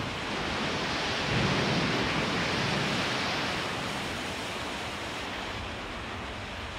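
Rushing, surging water sound effect, a steady noise that swells about a second and a half in and then slowly dies down.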